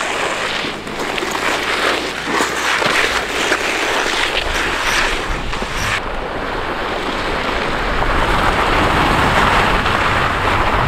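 Rider's leather suit and denim motorcycle jeans scraping along the road surface as he is dragged on a rope behind a car: a steady, loud rasping hiss. About six seconds in it changes abruptly to a lower, more even rasp of the body sliding over loose gravel.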